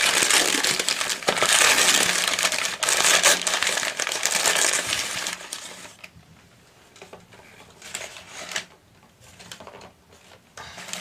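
Packaging being crumpled and unwrapped by hand: loud, dense crinkling for about the first five seconds, then quieter handling with scattered small clicks and knocks.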